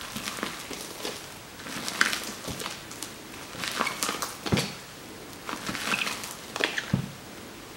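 Cloud slime made with instant snow being squeezed and kneaded by hand, giving soft crackling squishes in four bouts about two seconds apart, over a steady background hiss.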